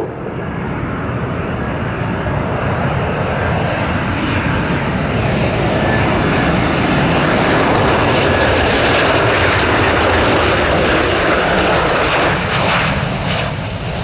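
Jet engines of a Ryanair Boeing 737 on final approach, passing low: a rushing engine noise that swells to its loudest about halfway through and eases off near the end as the aircraft comes in to land.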